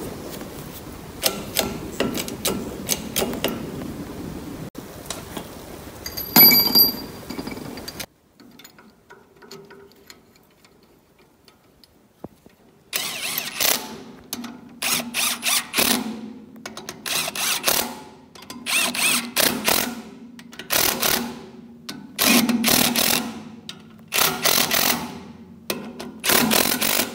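Clicks and knocks of the differential's steel carrier and ring gear being worked into the axle housing, with one louder ringing metal clank about six seconds in. After a few quiet seconds, a cordless power tool runs in a dozen or so short bursts, about one a second, driving the bearing cap bolts.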